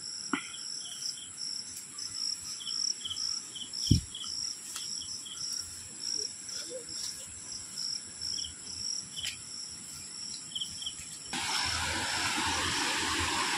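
Crickets chirping in quick repeated pulses over a steady high insect drone, with a couple of dull thumps. Near the end a steady rushing noise comes in.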